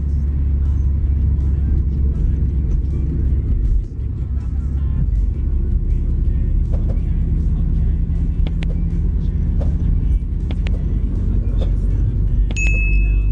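Steady low road and engine rumble of a car driving on a highway, heard from inside the cabin. A short high ding sounds near the end.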